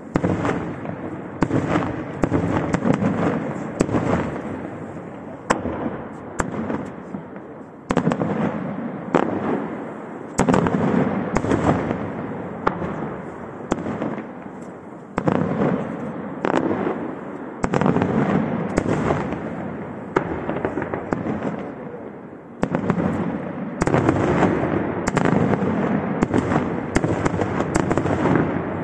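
Aerial firework shells bursting one after another in a professional display: sharp bangs, often several in quick succession, each followed by a dense crackling tail that fades over a second or two.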